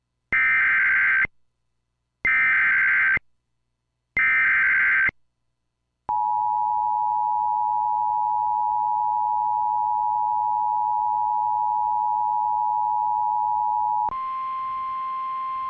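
Emergency Alert System SAME header: three one-second bursts of screeching data tones about a second apart, then the EAS two-tone attention signal, a steady dual-tone wail held for about eight seconds. Near the end it switches to a single, slightly higher steady tone at a lower level, ahead of a severe thunderstorm warning.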